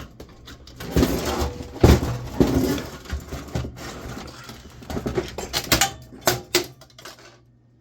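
An old desktop computer's plastic front and metal case being forced apart by hand: a run of scraping, creaking and clattering knocks, loudest in the first few seconds and thinning out toward the end.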